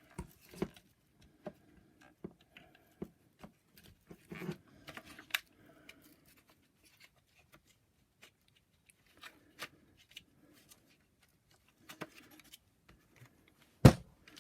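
Plastic brush roll and end parts of a Shark DuoClean vacuum head being handled and pushed into place: scattered light clicks and knocks with faint rubbing, and one sharper, louder knock near the end.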